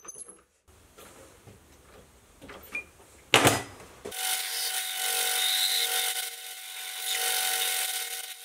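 Small metal lathe starting up about four seconds in after a sharp clack, then running with a steady motor tone while the tool cuts the face of a cast brass hammer head, a continuous hissing cut. Before that, a few light knocks of hand work at the chuck.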